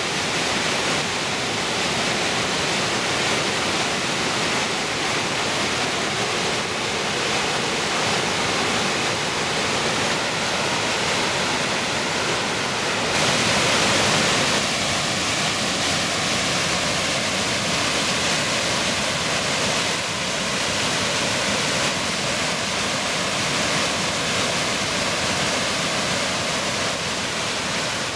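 Waterfall in heavy flow, a steady rushing roar of falling white water. It briefly swells about halfway through, then settles at a slightly different tone.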